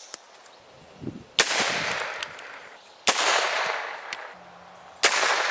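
AR-15 rifle firing 5.56mm blank rounds, three single shots a little under two seconds apart, each a sharp crack followed by a decaying echo.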